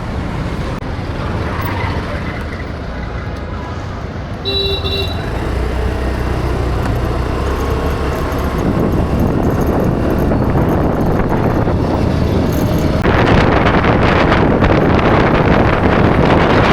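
Road traffic noise on a street: vehicle engines and tyres, with a short vehicle horn toot about four and a half seconds in. The noise grows steadily louder and becomes a loud rush over the last few seconds.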